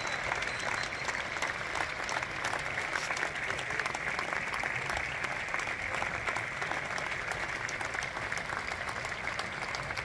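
Large audience in an open-air amphitheatre applauding steadily at the curtain call of an opera, a dense unbroken wash of many hands clapping.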